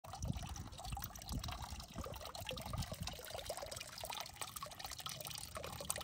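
Water trickling and splashing into a small garden pond from a fountain ornament, in a continuous, irregular patter.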